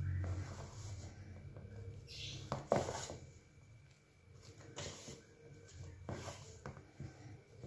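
Donut dough being stirred by hand in a mixing bowl with a spatula: irregular soft scraping and rubbing, with one sharp knock against the bowl about three seconds in.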